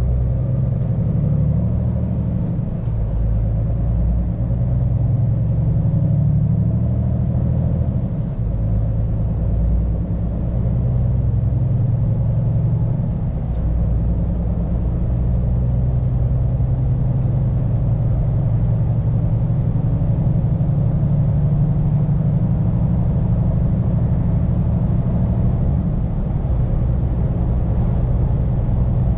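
Scania P410 truck's 13-litre straight-six diesel running under way, heard from inside the cab as a steady low drone mixed with road noise. Its pitch dips and rises a few times in the first half.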